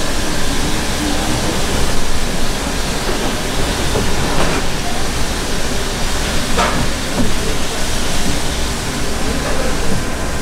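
Steady rushing background noise of a wholesale fish market floor, with two brief sharp sounds about four and a half and six and a half seconds in.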